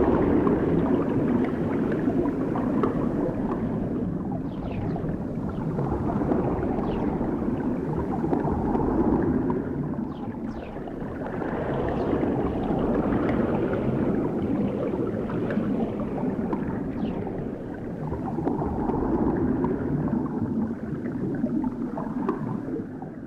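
Underwater movement texture: a muffled, churning water sound that swells and ebbs in slow waves every few seconds, with faint brief high chirps scattered through it.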